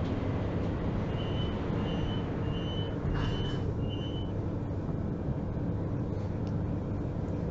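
Door-closing warning of a DB class 442 (Bombardier Talent 2) electric multiple unit: five short high beeps about two-thirds of a second apart, over the train's steady low interior hum. A brief rush of noise comes with the fourth beep.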